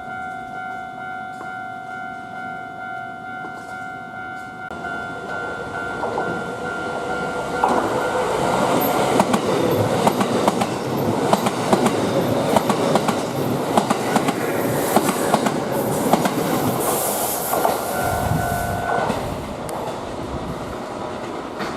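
A Japanese level crossing warning bell rings with a steady pitched ding. About eight seconds in, a Kintetsu electric train passes over the crossing, loud, with its wheels clicking over the rail joints. The bell stops near the end as the train noise fades.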